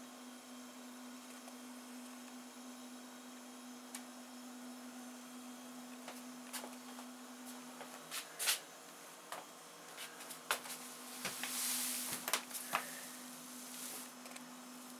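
Faint steady low hum, with scattered clicks and a brief rustle of handheld camera handling noise in the second half.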